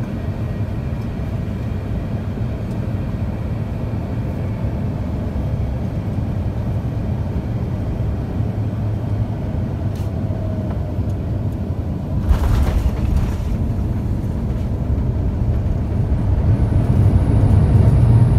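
Cabin rumble inside an Airbus A350-900 as it rolls along the ground just after landing: a steady low rumble of engines, airflow and wheels. A brief louder hiss comes about twelve seconds in, and the rumble swells near the end.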